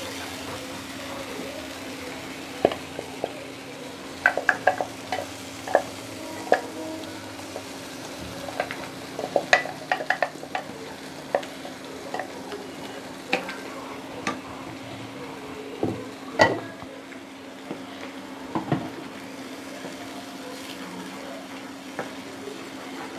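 Thick ground masala paste sizzling as it fries in a nonstick kadai, with a spatula stirring it and scraping and tapping against the pan in scattered clicks.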